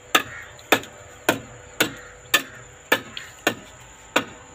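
A hand tool repeatedly striking brick, chipping off an excess piece: eight sharp knocks at a steady pace of about two a second.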